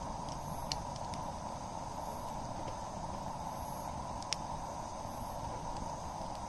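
Campfire burning over a steady hiss, with a few sharp crackles and pops from the wood.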